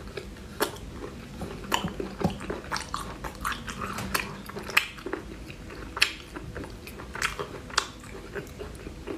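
Chewing of spicy snail meat: wet mouth sounds with sharp, irregular smacks and clicks about once a second.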